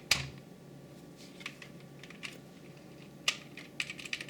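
Scattered plastic clicks and clacks on an SK61 mechanical keyboard with Gateron optical brown switches as a puller tool is worked at its keys and switches. The sharpest clicks come just after the start and about three seconds in, with a few quick ones near the end.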